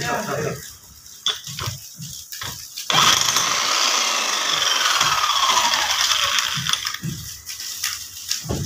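Electric demolition hammer breaking hard adobe rock. A few scattered knocks come first, then about three seconds in the hammer runs steadily for roughly four seconds.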